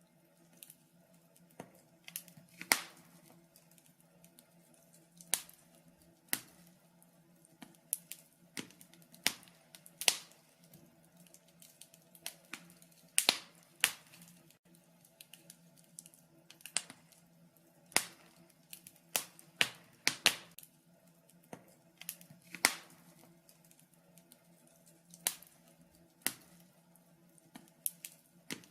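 Wood fire crackling in a fireplace: irregular sharp pops and snaps, roughly one or two a second and varying in loudness, over a faint steady hum.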